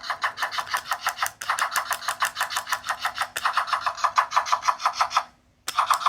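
Sound-making capsule toy playing an electronic sound effect through its tiny speaker: a fast, even pulsing with no bass, which stops about five seconds in and starts again half a second later.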